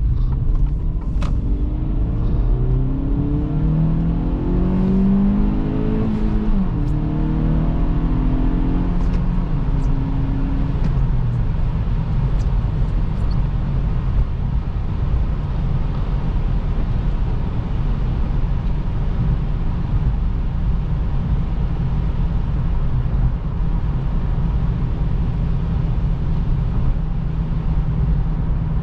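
2023 Acura Integra's 1.5-litre turbocharged four-cylinder accelerating over a steady rumble of road and tyre noise. The engine note climbs, drops sharply about six seconds in, climbs again, then settles into a steady cruise drone.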